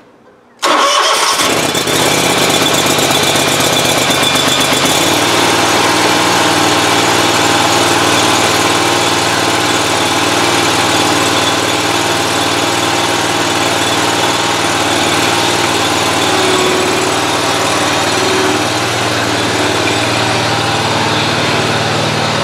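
Scag mower engine cold-starting: it catches suddenly about half a second in and then runs steadily, its note changing about five seconds in.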